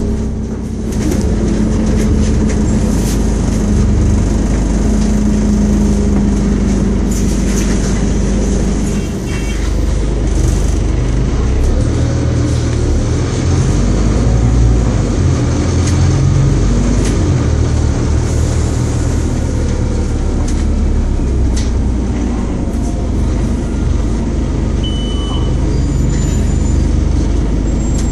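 Scania OmniCity single-deck bus's diesel engine and road noise heard from inside the passenger saloon as the bus drives through town, the engine note shifting as it pulls and eases off, with small rattles from the body. Near the end a short stop-request beep sounds as the bus is called to stop.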